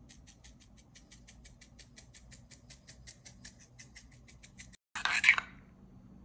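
Chili flakes dispensed from a small spice container over a plate of labneh: a quiet, even run of dry ticks, about six a second, which stops suddenly. About five seconds in comes a brief, louder rustling noise.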